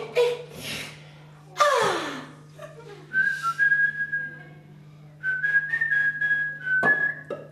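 A man whistling two short phrases of high, held notes that step between a few pitches. They follow a falling vocal swoop about a second and a half in.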